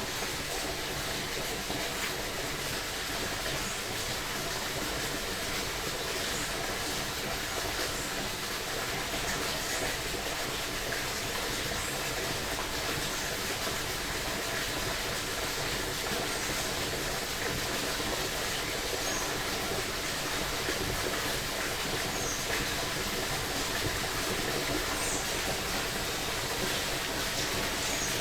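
Creek water rushing steadily over its bed, with a few faint, brief high chirps in the second half.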